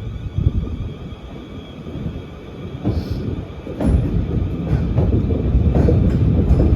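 Two coupled Class 450 Siemens Desiro electric multiple units pulling out of the platform: a low rumble of the train that grows louder about four seconds in as it gathers speed, with a few sharp clicks about a second apart.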